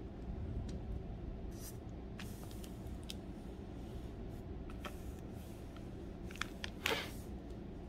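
Hand handling and brushing across thin Bible-paper pages: scattered soft rustles and clicks, with a louder rustle about seven seconds in, over a low steady hum.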